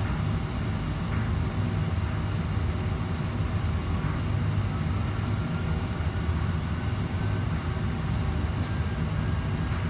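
Steady mechanical rumble of a commercial kitchen's ventilation and running equipment, with faint clinks of utensils now and then.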